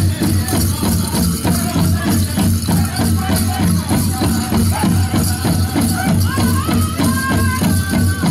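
Powwow drum group playing for the men's chicken dance: a large drum struck in a steady, fast beat with men singing high, held notes, and a shaking jingle of dancers' bells.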